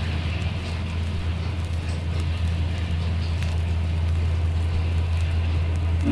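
Duluth, Missabe & Iron Range 2-8-8-4 Yellowstone steam locomotive No. 226 working, a steady heavy rumble that grows slowly louder, with the crackle of old vinyl surface noise over it.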